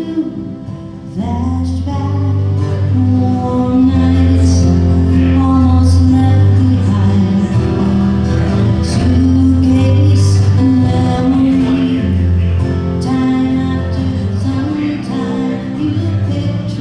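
Live music: a woman singing to her own acoustic guitar, accompanied on a Roland VR-730 keyboard, with sustained low bass notes under the voice.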